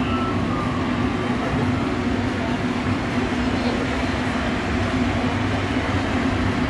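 Steady murmur of a crowd walking and talking indistinctly, over a constant low hum.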